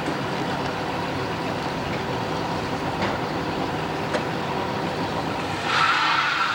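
A van's engine running as it pulls a boat trailer up the launch ramp, with a high, noisy screech starting near the end, like tyres spinning for traction on the wet ramp.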